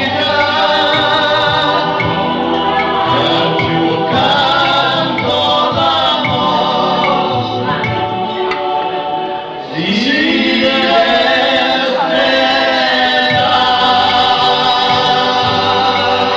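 Live band music: keyboards and acoustic guitar with singing into a microphone. The music dips briefly about two-thirds of the way through, and a new sung phrase comes in with an upward slide.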